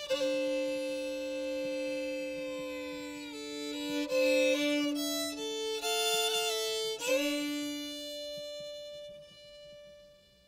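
Background music: a violin playing slow, held notes over a steady lower drone note, fading out near the end.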